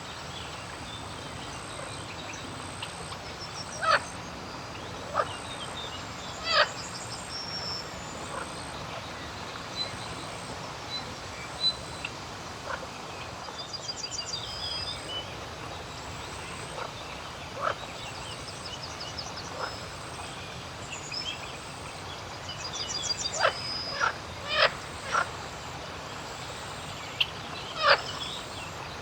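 Frogs croaking in short, sharp single calls at irregular intervals, several in quick succession near the end, while small birds chirp and trill high above a steady outdoor background hiss.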